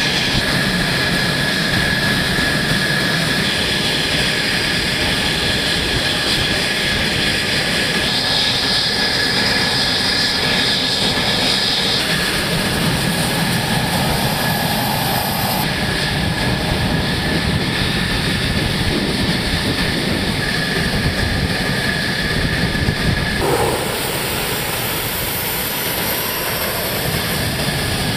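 F-16 fighter jet engines running on the flight line: steady, loud jet noise with a high-pitched whine over a rumble. The sound changes abruptly a few times.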